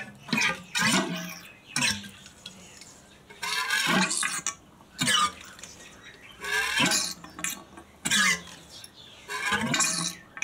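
A Suzuki DR650 fork leg being pumped to purge the last of its oil, giving a string of about nine short, squelching, quack-like squawks as oil and air spurt out. It sounds like a duck spewing.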